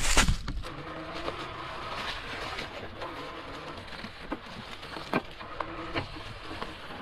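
Bikonit MD750 e-bike riding along a leafy woodland trail: a faint steady whine from its 750-watt mid-drive motor over the rush of tyres on leaf litter, with scattered sharp snaps of twigs. A loud clatter opens it.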